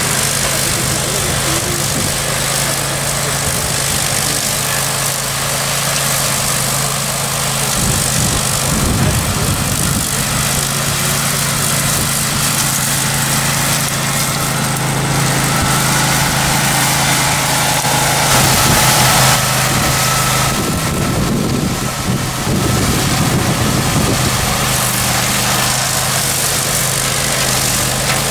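Grillo Climber 9.22 ride-on mower's 22 hp engine running steadily under load as its deck cuts through tall dry grass, a constant low drone. The drone turns rougher and more uneven for a few seconds about eight seconds in and again around twenty seconds in.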